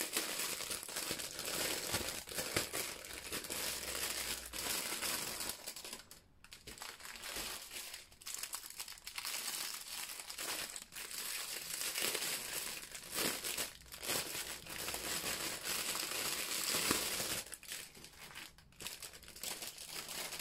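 Clear plastic packaging crinkling and rustling as bundles of bagged diamond painting drills are handled and the outer wrap is pulled off, with a couple of brief lulls.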